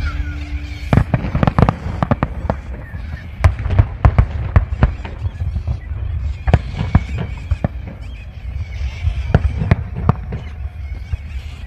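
Fireworks display going off: a rapid, irregular series of bangs and crackles over a steady low rumble.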